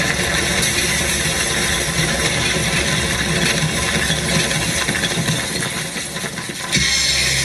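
Sound effects from a projection-mapping show's soundtrack: a dense, rattling noise that goes with the projected facade breaking apart. Near the end it switches suddenly to a steady low drone.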